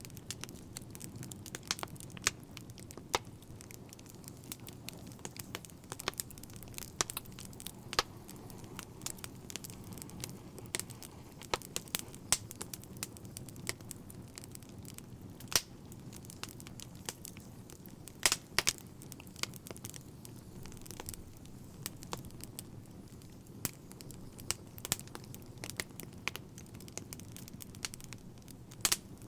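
Wood fire crackling: irregular sharp pops and snaps, scattered unevenly, over a steady low rumble of the burning fire.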